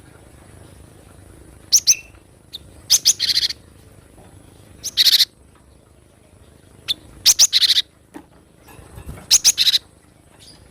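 Cinereous tit (gelatik batu) calling. About every two seconds comes a short phrase of a few sharp high notes that sweep downward, most followed by a harsher buzzy note.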